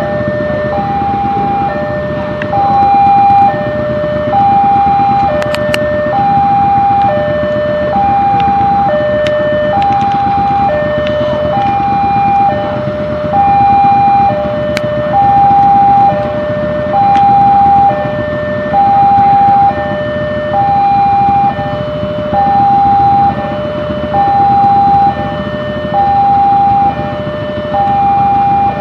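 Railway level-crossing warning alarm sounding: an electronic signal that alternates evenly between a higher and a lower tone, about one high-low pair every 1.7 seconds, signalling that the barriers are down for an approaching train. A steady rumble lies beneath it.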